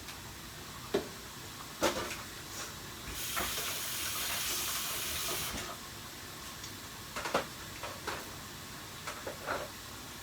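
Hissing from a pot of seafood boil at a hard boil, lasting about two and a half seconds mid-way, among scattered clicks and knocks of the pot and utensils.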